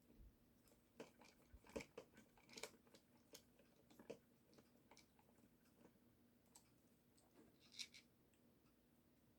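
Faint, irregular clicks and light taps of small hard plastic parts being handled, as screws are driven back into a plastic toy gearbox.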